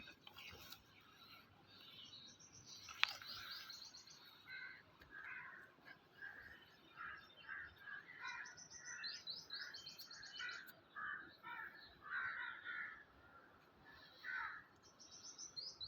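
Small birds chirping, with quick high trills of rapidly repeated notes coming every few seconds. A single sharp click sounds about three seconds in.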